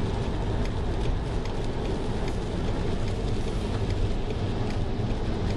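Steady rumble of a car driving on a rain-soaked road, heard from inside the cabin, with faint ticks of raindrops on the windshield.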